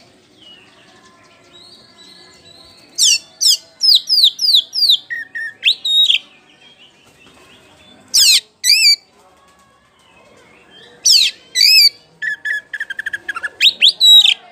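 Oriental magpie-robin (white-bellied kacer poci) singing loudly in phrases of sharp, downslurred whistles, separated by pauses. Near the end comes a fast stuttering run of quick notes, then more loud whistles.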